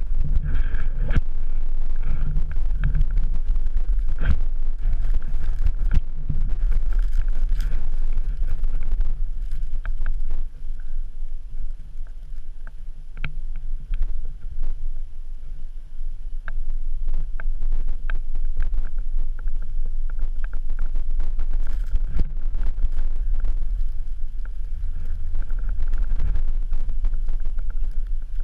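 Wind buffeting an action camera's microphone as a low, steady rumble, easing off for several seconds in the middle. Scattered sharp clicks and knocks run through it, from the camera pole being handled and from climbing on snow and rock.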